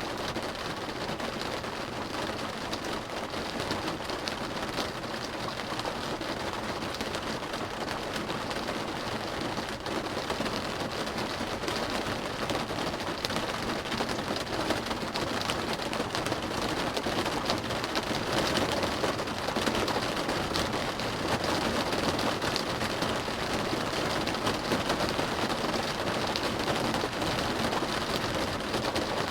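Rain drumming on a car's roof and windows, heard from inside the cabin: a dense, steady patter of drops that gets a little heavier about ten seconds in.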